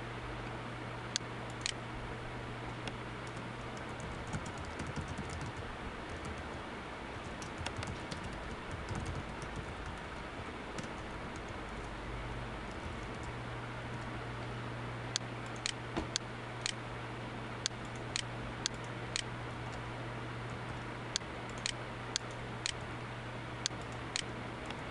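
Computer keyboard and mouse clicks: a few faint clusters of keystrokes, then single sharp clicks about half a second apart in the second half, over a steady low hum and hiss.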